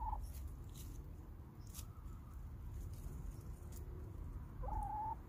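A hen (domestic chicken) gives two soft, short single-pitched calls, one right at the start and a slightly longer one near the end, with faint ticks and rustling in between.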